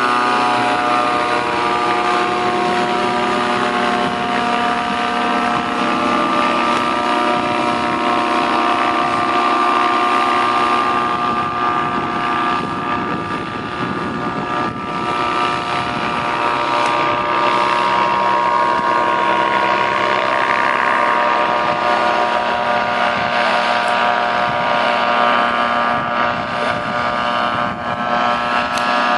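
Paramotor (powered paraglider) engine and caged propeller flying overhead, a steady loud drone.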